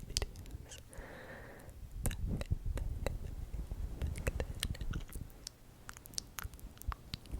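Close-miked ASMR mouth sounds: many quick, wet clicks and smacks, with a soft breath about a second in and a low rumble under the clicks from about two seconds in.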